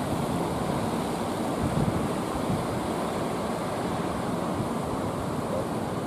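Heavy surf breaking and washing ashore in a steady rush, with wind on the microphone.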